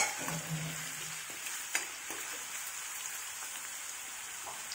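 Crushed garlic and curry leaves sizzling in hot coconut oil in an aluminium kadai for tempering, stirred with a steel spoon. The spoon clinks sharply against the pan at the start and again about two seconds in.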